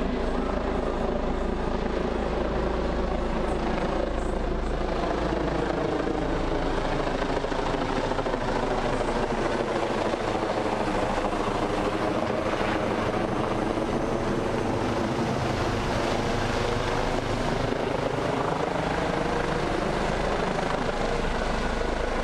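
Police helicopter flying low overhead as it comes in to land, its rotor and turbine sound loud and steady. The pitch of its hum sags toward the middle and rises again later.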